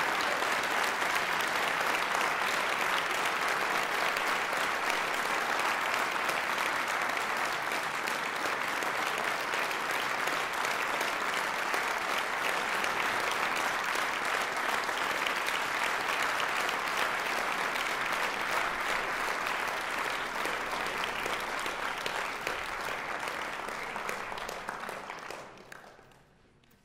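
Concert audience applauding after a brass band piece: dense, steady clapping that dies away quickly near the end.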